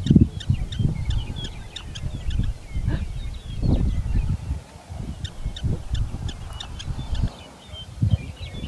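Black-tailed prairie dogs giving alarm barks: many short, high chirps in quick succession, over a rumble of wind on the microphone.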